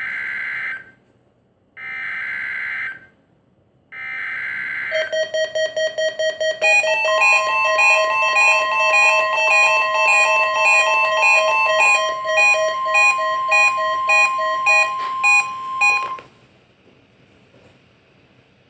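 Emergency Alert System weekly-test tones. First come three roughly one-second bursts of SAME header data, a buzzy digital screech. From about five seconds in there are some eleven seconds of rapid electronic beeping at several pitches, cutting off abruptly.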